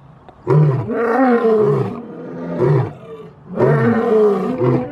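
Lion roaring, played as a sound effect: two long roars, the second starting about three and a half seconds in.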